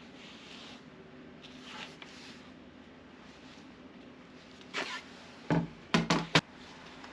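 A few sharp knocks, three or four close together about five and a half to six and a half seconds in, over a faint steady background.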